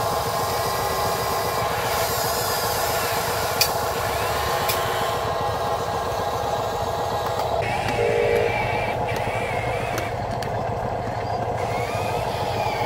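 Steady whine of the small electric motors and gearboxes of a radio-controlled Huina 580 excavator and Huina 573 dump truck at work, with a few sharp clicks. The tone changes about 8 seconds in.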